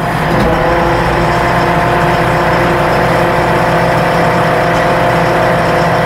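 Diesel engine of a JCB 3DX Xtra backhoe loader running steadily at idle, no throttle, while its hydraulics lift the front loader arms with the high-speed loader function switched on, heard from inside the cab.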